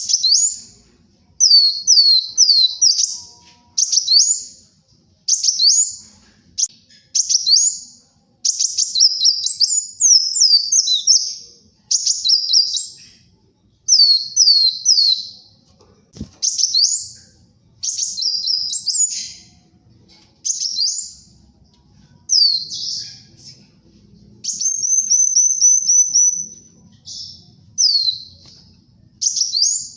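Kolibri wulung sunbird singing: fast, high-pitched phrases of sweeping chirps, each about a second long with short pauses between them, and a quick run of repeated notes near the end.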